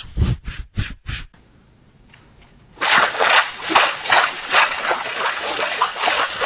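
A run of short, quick pulses that stops about a second in, then after a brief lull a dense, irregular splashing texture like trickling and sloshing water. Both are sound-effect demo audio, either vocal imitations or the sound effects generated from them.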